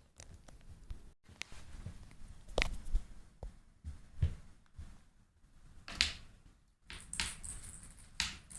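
Scattered light knocks, taps and rustling, with a handful of louder knocks.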